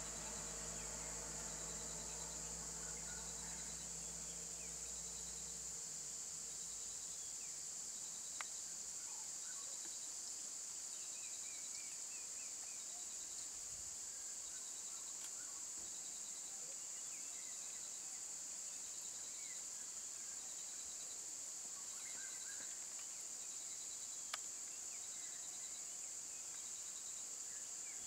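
Steady high-pitched insect chorus, with a softer chirping pulse repeating about once a second and a few scattered bird chirps. A low idling vehicle hum stops about six seconds in. Two sharp clicks come about a third of the way in and near the end.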